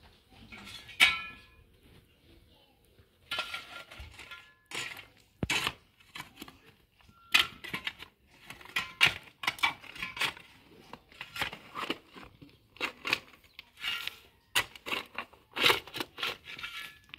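Repeated scraping, knocking and clinking of metal against hard surfaces, some strikes ringing briefly.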